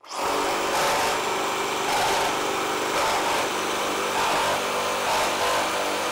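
Makita GRJ02 40V XGT brushless reciprocating saw, orbital action off, cutting through a thick block of wood. A loud, steady sawing noise starts suddenly and holds an even level.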